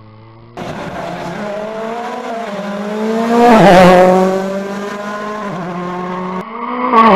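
Ford Fiesta rally car's engine at high revs, climbing in pitch as it approaches, then loudest with a sharp drop in pitch as it passes close by about three and a half seconds in. Near the end another rally car's engine comes in briefly and loudly.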